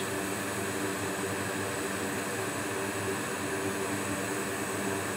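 Steady whir of a fan with a low, even hum underneath, unchanging throughout.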